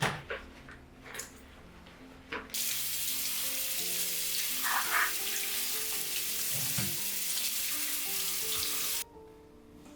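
Kitchen tap turned on and running water for about six seconds, then shut off, after a few light knocks of kitchenware.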